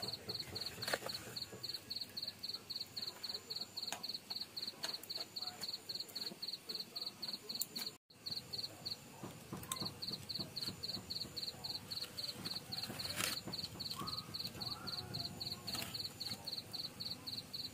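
A cricket chirping steadily at about four chirps a second, pausing briefly partway through, with a few sharp pops from the crackling wood fire.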